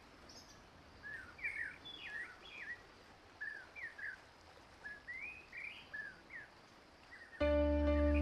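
Small birds chirping, with short rising and falling notes scattered through a quiet woodland background. A little past seven seconds in, ambient music comes in: a deep drone with held tones above it.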